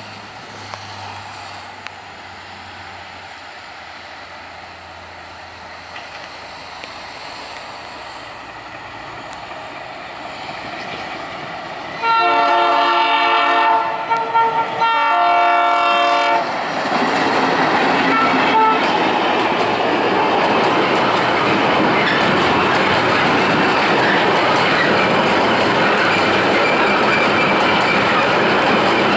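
ALCO diesel locomotive approaching, its engine running and growing slowly louder, then sounding its multi-tone air horn in two long blasts about halfway through. The locomotive and its loaded rail flatcars then pass close by, wheels clattering over the rail joints.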